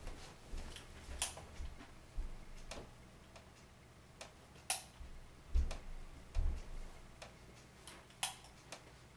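Faint, irregular ticking and clicking from a moving baby swing, a sharp click every second or so, with a few dull low thumps.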